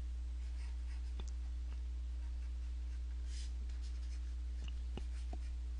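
Faint scratching and light taps of a stylus on a graphics tablet as words are handwritten, a few short strokes and clicks over a steady low hum.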